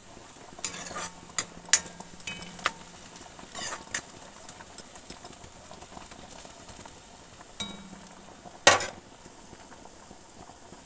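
Metal spatula scraping and clinking against a kadai as sliced onions and dried red chillies are stir-fried, with a light sizzle of hot oil underneath. The scrapes come thickest in the first few seconds, and one sharp clank stands out near the end.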